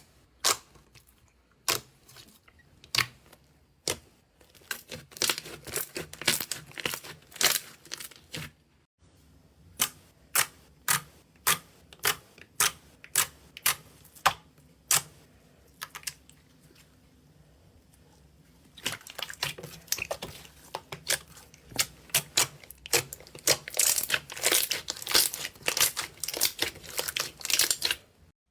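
Slime being pressed, stretched and poked, giving a string of sharp, crisp pops and clicks about one or two a second. Partway through, it turns into denser, continuous crackling and popping.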